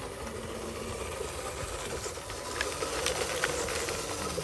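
Radio-controlled truck's electric drive motor and gearbox whirring steadily as it drives on sandy dirt, with a few sharp clicks in the middle.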